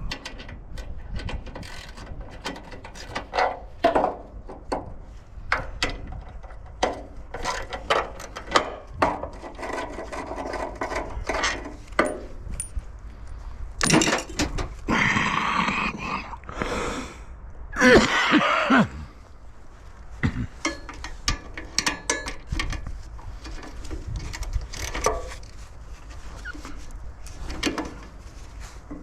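Irregular knocks, clicks and clanks of metal parts and tools being handled, with two louder stretches of rasping noise about halfway through.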